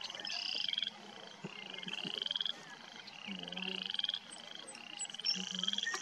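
Frogs calling in a chorus: short, rising, pulsed trills repeating about once a second, several voices overlapping.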